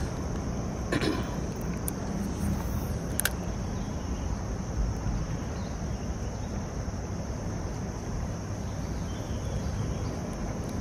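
Steady low rush of flowing creek water with a constant high insect buzz over it. A brief swish comes about a second in, and a single sharp tick a little after three seconds.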